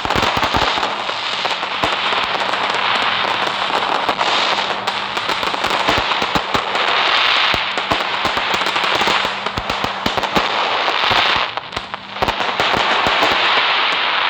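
Fireworks crackling: a dense stream of rapid pops over a steady hiss, swelling and easing in waves, with a short dip about twelve seconds in.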